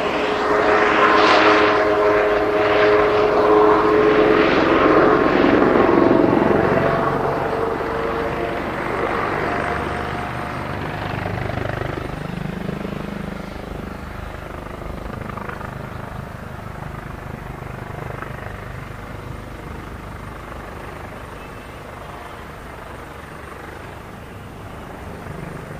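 Kawasaki OH-1 helicopter's twin turboshaft engines and rotor passing close by: a loud turbine whine with the rotor blades chopping, the whine sinking in pitch about five seconds in, then the sound fading steadily as the helicopter flies off.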